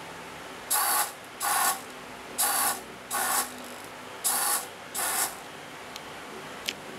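Small Tower Pro RC servo whirring as it swings one way and back, three times over: six short gear-motor whirs in pairs, each about a third of a second. A couple of faint ticks near the end.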